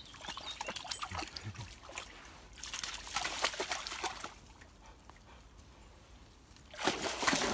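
A dog wading through a shallow stream, splashing and sloshing the water in bursts: briefly about a second in, more strongly for about a second a little past the middle, and loudest near the end.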